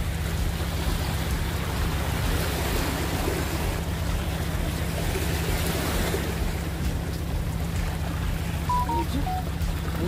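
Sea waves washing and breaking over shoreline rocks, with wind buffeting the microphone. A few short high notes come in near the end.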